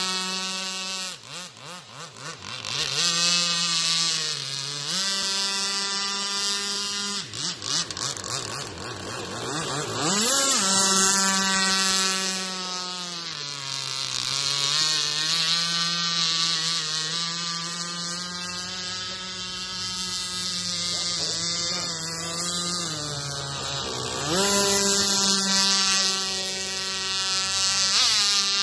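Aeromarine H45 RC gas boat's custom-modified gas engine running flat out, a loud buzzing whine. Its pitch dips and swoops back up several times, sharply about ten seconds in and again near the end.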